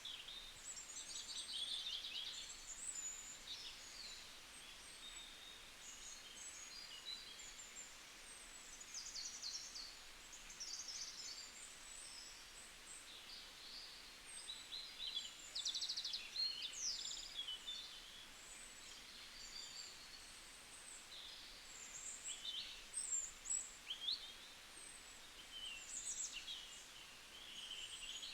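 Several songbirds chirping and trilling, with many short overlapping calls at once, over a faint steady hiss.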